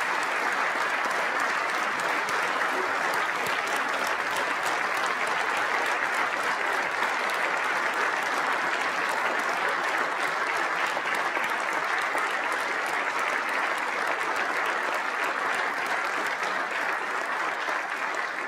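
Sustained applause from a large crowd standing and clapping, steady and unbroken throughout.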